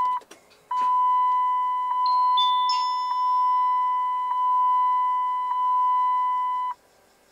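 Dashboard warning chime of a 2007 Dodge Ram pickup as the ignition is switched on before cranking: a steady high electronic tone pulsing about once a second for roughly six seconds, with a few brief higher beeps about two to three seconds in, then it stops. The engine is not yet running.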